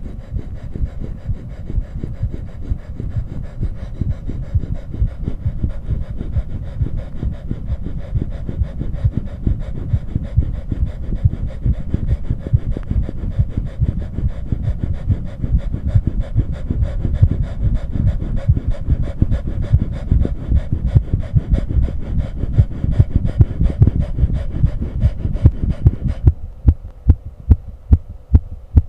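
Heartbeat picked up by a microphone against the chest, beating fast under heavy panting breaths. About 26 s in the breathing stops and the heart thumps stand out alone, about two a second.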